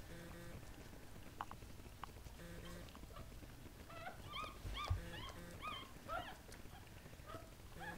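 Newborn Golden Doodle puppy squeaks: short high-pitched cries that rise and fall in pitch, coming in a quick series from about halfway through. A soft bump just before five seconds.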